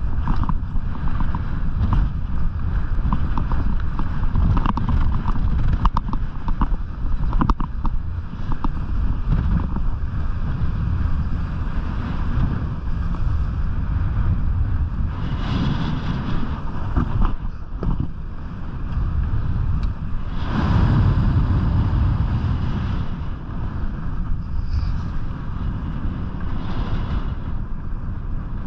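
Wind buffeting an action camera's microphone with the hiss and scrape of skis running over groomed snow during a downhill run, swelling louder a few times, most of all about twenty seconds in.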